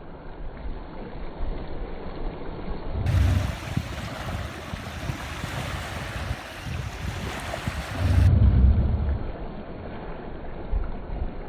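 Sea waves washing in, with wind buffeting the microphone. It swells into two louder rumbling surges, about three seconds in and again about eight seconds in.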